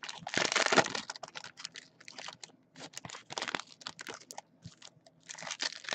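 Trading card pack wrappers being torn open and crinkled, with cards being handled: uneven bursts of crinkling and tearing and scattered sharp clicks, busiest in the first second and again near the end.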